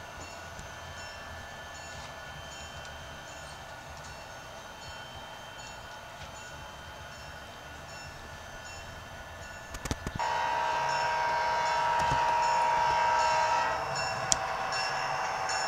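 Model trains running on a club layout: thin steady metallic tones with light regular ticks. About ten seconds in, after a few clicks, the sound gets louder, with several tones held together for about three and a half seconds.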